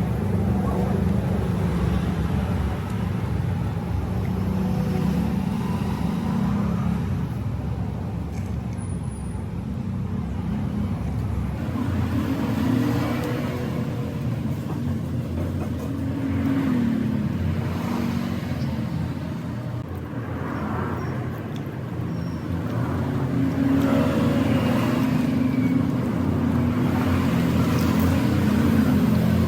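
Road traffic: vehicle engines running and passing, their pitch rising and falling, under a steady background noise.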